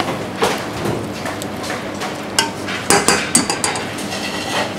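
Sharp clicks and knocks of a chef's knife against a plastic cutting board as scallops are cut, among other clinks of kitchen utensils. The sharpest strikes come in a quick cluster a little past halfway.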